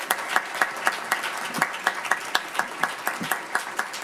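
Audience applauding, with one set of close, loud hand claps at about four a second standing out over the quieter clapping of the room.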